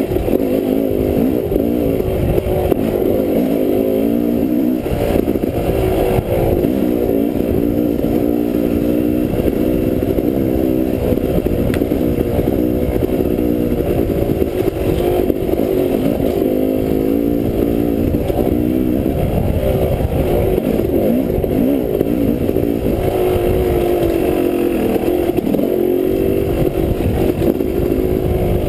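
Dirt bike engine running under load as it is ridden along a rough trail, its pitch rising and falling again and again with the throttle.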